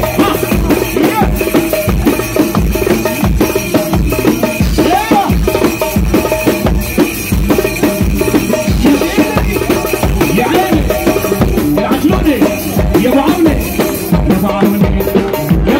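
Darbuka (Arabic goblet drum) played by hand in a fast rhythm of deep strokes and quick sharp rim strokes, miked up in loud live dance music, with a wavering melody over it.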